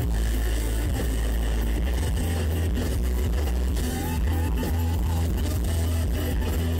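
Live rock band playing an instrumental passage led by electric guitars, with a pitch-bending guitar line about four seconds in. The close-up recording is heavily distorted, with booming bass.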